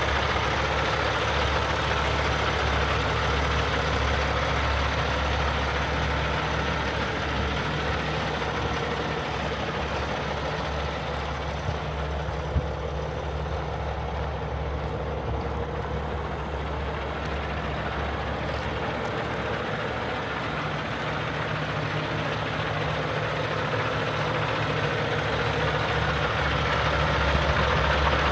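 Peterbilt 389 day cab's 500 hp Cummins X15 diesel idling steadily, a little louder near the end.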